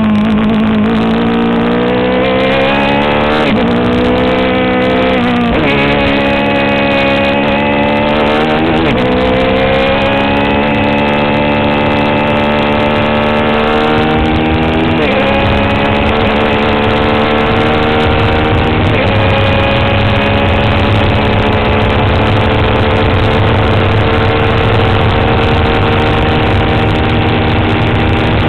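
Onboard sound of a Swift DB4 Toyota Atlantic race car's four-cylinder engine accelerating hard through the gears at full throttle. The pitch climbs and drops five times with the upshifts, then holds high and steady at speed.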